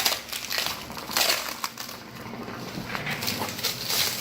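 Protective wrapping being pulled off table parts, crinkling and crackling in irregular bursts.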